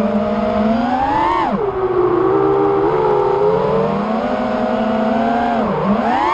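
Motors and props of a 5-inch FPV racing quadcopter (Armattan Rooster, Underdog 2150 kV motors) whining as the throttle changes: the pitch rises about a second in, drops sharply, holds lower, then climbs again, dips and rises near the end.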